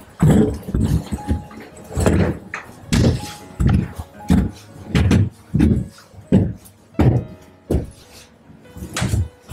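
Quad roller skates rolling on a hard floor, with a rumbling thud at each stride, about one every half second to a second.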